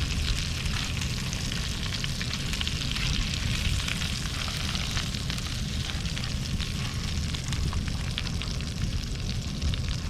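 Rainbow trout frying in a hot pan: a steady sizzle with many small crackles and pops.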